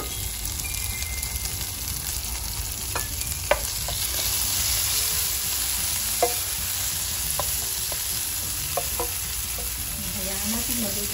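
Long beans and tomatoes sautéing in hot oil with onion and garlic in a pan: a steady sizzle, with a few sharp clicks of the spatula against the pan as it is stirred.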